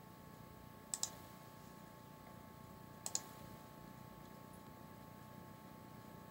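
Computer mouse buttons clicking: two short click events about two seconds apart, each a quick pair of clicks, over a faint steady electrical hum.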